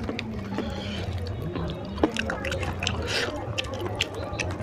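Close-up wet eating sounds: fingers squelching and tearing a piece of oily curried mutton, with many short sticky clicks and smacks.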